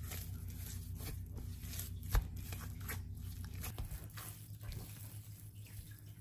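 Hands kneading and squeezing sticky milk-bun bread dough in a glass bowl: irregular soft squelching and tearing as the dough is pressed and pulled apart. A single sharp knock about two seconds in is the loudest sound.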